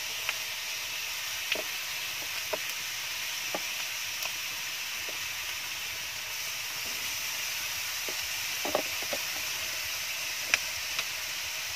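Marinated chicken pieces sizzling on a hot non-stick grill pan over a wood fire: a steady hiss, with a few sharp clicks and pops scattered through it.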